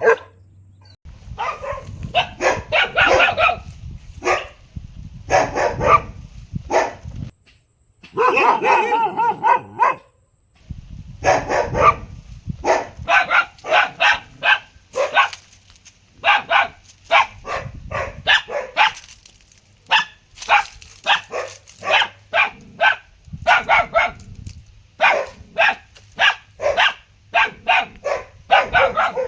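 A dog barking loudly and repeatedly, in quick runs of short barks, with one longer drawn-out cry lasting about two seconds around eight seconds in.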